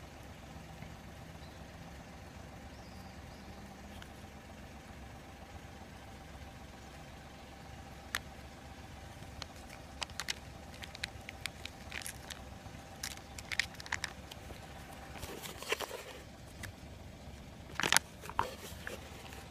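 Japanese raccoon dog (tanuki) eating wet food off asphalt: scattered soft clicks and smacks of chewing and licking, in small clusters, over a steady low hum. A louder rustle near the end as the phone brushes against clothing.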